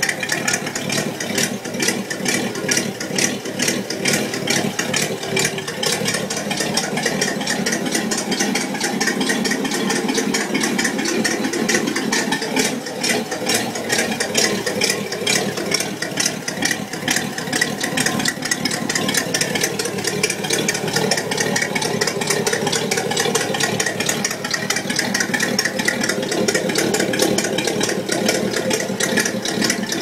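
Buick Nailhead V8 idling steadily with a rapid ticking, the sign of an exhaust leak.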